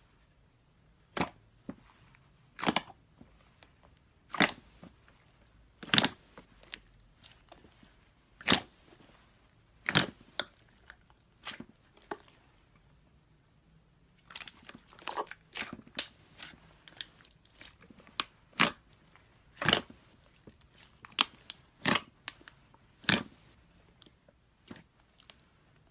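Glossy slime being pressed and stretched, giving sharp, loud pops of trapped air every second or two, with a run of smaller crackling pops about halfway through.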